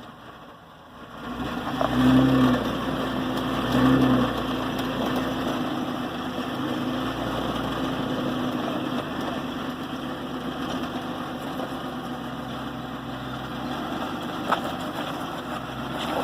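Off-road vehicle engine running. It comes up about a second and a half in, revs in two short surges, then runs steadily.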